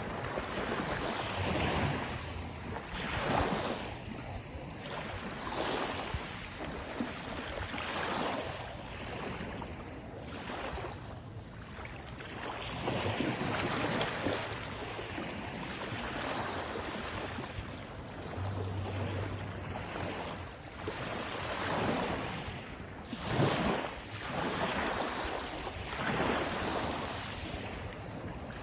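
Sea waves washing in and breaking in repeated surges a couple of seconds apart, with wind on the microphone.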